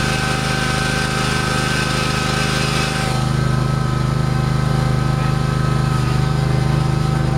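Tractor engine running steadily at an even speed as the tractor drives along the road, with a constant pulsing drone. A higher hiss over it drops away about three seconds in.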